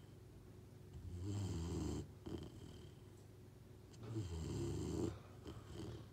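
Cane Corso dog snoring in its sleep: two long snores about three seconds apart, each lasting about a second.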